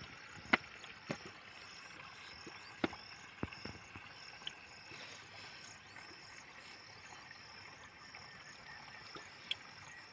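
Water trickling from a plastic bottle into the filling hole of a water-filled submersible pump motor, topping the motor up with water before it is installed. A few sharp clicks of the bottle and fittings being handled, over a steady chirr of insects.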